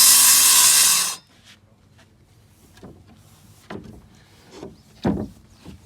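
A power tool runs loudly and stops abruptly about a second in, followed by scattered knocks and thumps of wood being handled, the heaviest about five seconds in.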